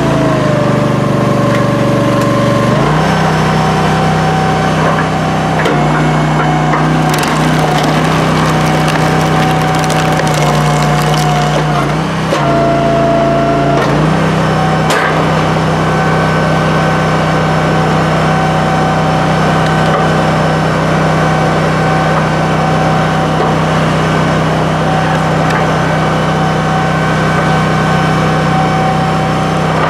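Honda engine of a commercial hydraulic log splitter running steadily, dropping in pitch twice as it comes under load. Wood cracks and splinters as the log is split.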